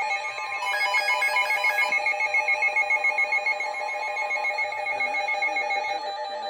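Weather alert radio sounding its electronic alarm: a loud, fast-trilling warble of a few steady tones, like a ringtone.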